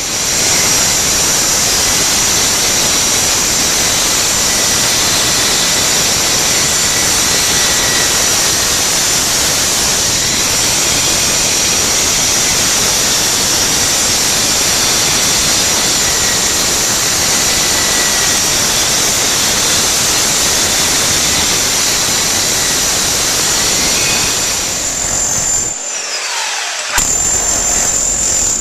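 Electric power tool cutting into a basement's concrete floor to open a hole for a sump, its motor running steadily with a high whine. Near the end the motor's pitch falls and the sound breaks up.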